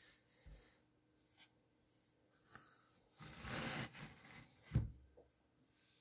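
Handling noise as a sandal is held and moved: scattered soft rubbing sounds, a louder rustle about three seconds in, and a dull knock near the end.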